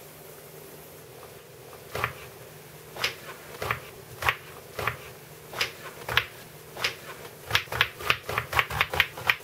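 Kitchen knife chopping an eggplant on a cutting board. Single chops come about a second apart at first, then speed up to rapid chopping near the end.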